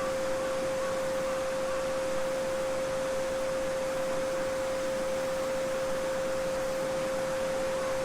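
A steady 528 Hz sine tone held without a break, over the gentle babbling of a small brook.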